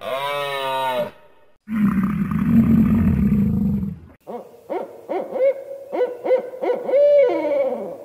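A string of animal call sound effects. First comes a short pitched call, ending about a second in. Then a low, rough roar lasts about two seconds, followed by a quickening run of about eight short rising hoots.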